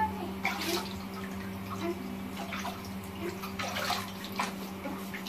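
Water splashing and sloshing in a plastic baby bath as a baby is washed by hand, in small irregular splashes.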